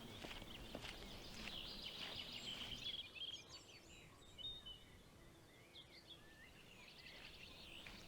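Forest birds singing and chirping faintly. For the first three seconds or so there are also footsteps on a woodland trail, then only the birdsong.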